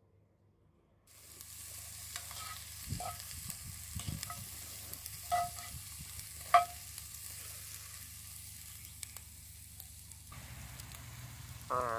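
Chopped onions sizzling in hot oil in a cast iron pan, starting about a second in, while a wooden spoon stirs them with scattered knocks and scrapes against the pan, one knock louder about halfway through.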